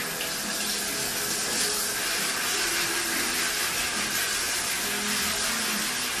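Steady rushing hiss of water running in a dog's bath tub.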